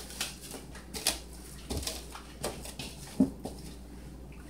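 Plastic wrap crinkling and crackling in short separate bursts as it is pressed and smoothed over the rim of a stainless steel mixing bowl, about six crackles over four seconds.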